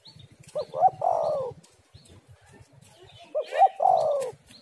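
Spotted dove cooing: two calls about three seconds apart, each a couple of short notes running into a longer falling coo. Small birds chirp faintly in the background.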